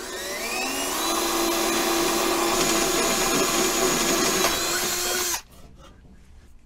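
Milwaukee cordless drill with a 1/8-inch bit drilling a pilot hole through aluminum. The motor whine rises in pitch over the first second, runs steadily for about four seconds, then stops abruptly.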